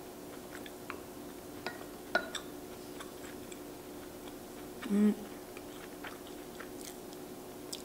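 Close-miked chewing as a person eats, with scattered faint clicks and a short hummed "mm" about five seconds in.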